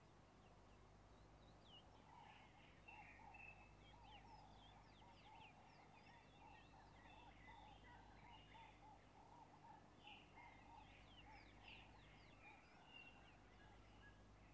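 Near silence with faint bird calls: a long run of quick repeated notes and scattered high chirps, over a low steady hum.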